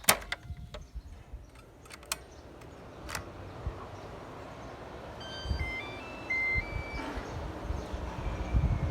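A few sharp clicks, then a large barn ventilation fan's whoosh of moving air builds steadily as it spins up. About five seconds in, a short string of electronic beeps at stepping pitches sounds.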